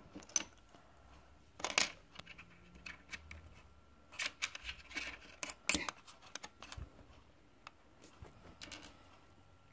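Plastic Lego bricks and plates clicking and clattering as they are handled, in faint, scattered, irregular taps with a busier run about halfway through.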